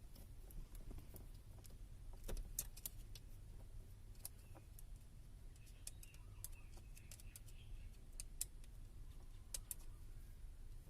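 Faint, scattered clicks and light rattles of small hard parts being handled, over a low steady hum.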